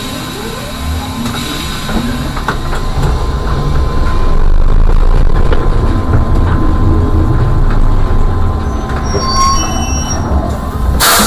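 Electric trolleybus running along, heard from the cab: a steady low rumble with a thin whine, a few short high squeals near the end, and a sharp clack just before the end.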